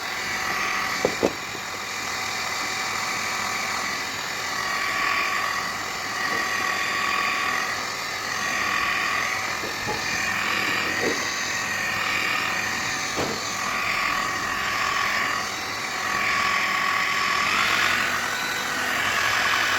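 A small electric motor running with a steady whine and hiss that swells and fades, its pitch stepping up near the end, with a few faint knocks.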